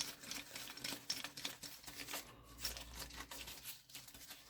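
Faint, scattered clicks and light taps of old metal hand tools (wrenches and pliers) being handled and sorted through in a box.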